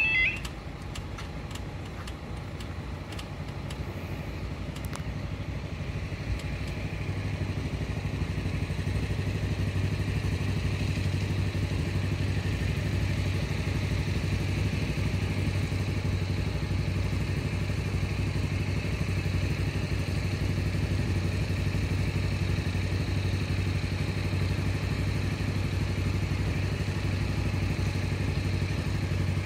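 A steady low engine hum, growing louder over the first several seconds and then holding level, with a faint hiss above it.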